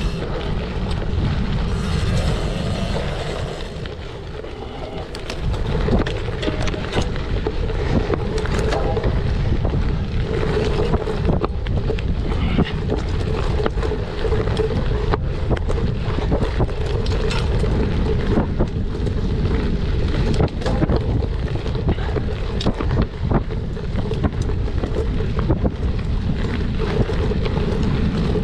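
Wind buffeting the microphone of a cyclocross bike being raced over rough ground, with frequent short knocks and rattles from the bike.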